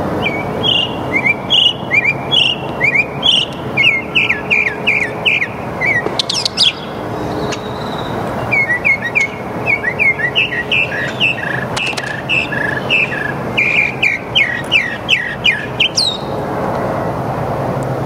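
Northern mockingbird singing: two long runs of quick, repeated down-slurred notes, with a pause of a second or two near the middle.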